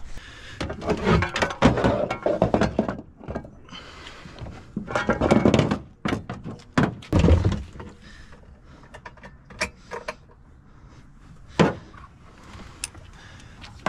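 Pressure-washing gear being handled in a pickup truck bed: bursts of clattering and thuds as hose reels and equipment are lifted and set down. Later come scattered clicks and one sharp knock.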